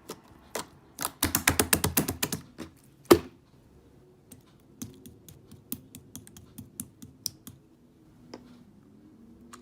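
A rapid run of sharp clicks and taps, dense for a second or two, then one loud click, then sparser, lighter ticks.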